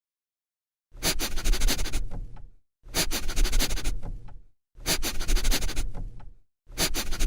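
A dog sniffing in four bouts of about two seconds each. Each bout is a quick run of short noisy sniffs, with silence between the bouts.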